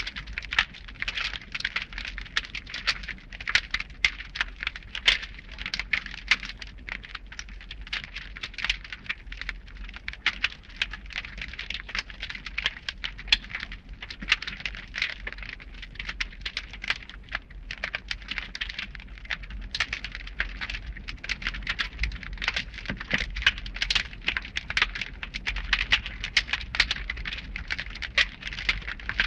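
Cartoon fire sound effect: a steady blaze of dense, fast crackling and popping with a low rumble underneath.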